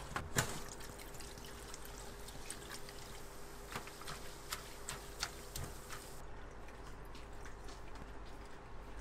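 Hands rubbing and washing raw chicken feet in water in a stainless steel bowl: light splashes and wet sloshing with scattered small clicks, dying down to a quieter trickle after about six seconds.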